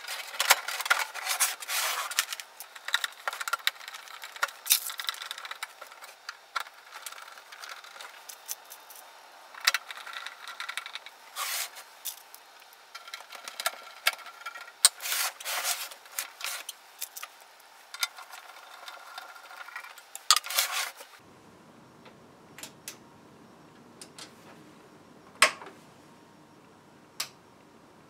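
Sheet-metal top cover of a Technics SU-V50 stereo amplifier being slid into place and its case screws driven in with a screwdriver: a dense run of metallic clicks, scrapes and rattles. About 21 seconds in this gives way to quieter room tone with a few single sharp clicks.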